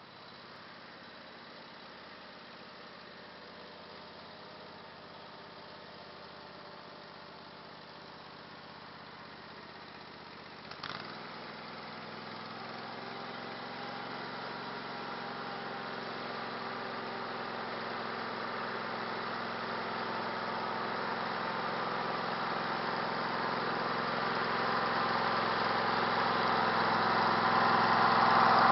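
Small ride-on vehicle's engine running as it drives toward the listener, growing steadily louder throughout. A brief click comes about eleven seconds in, after which the engine sound fills out lower down.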